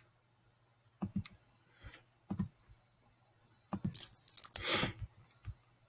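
A few soft computer mouse clicks, scattered singly and then in a quick run about four seconds in, followed by a short rustle.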